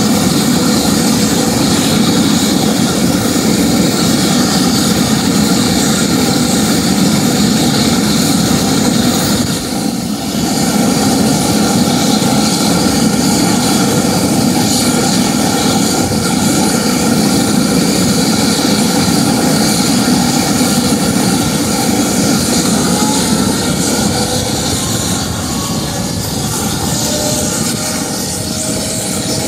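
Bell Boeing V-22 Osprey's two Rolls-Royce T406 turboshaft engines and proprotors running steadily during engine warm-up, loud throughout. The level dips briefly about ten seconds in, and a faint whine rises in pitch near the end.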